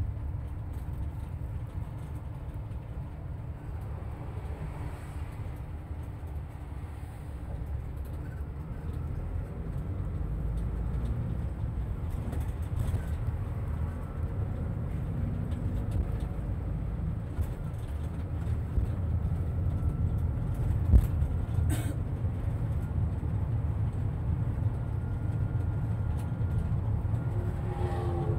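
Inside a moving bus: a steady low rumble of engine and road noise, with a single sharp knock a little after three-quarters of the way through.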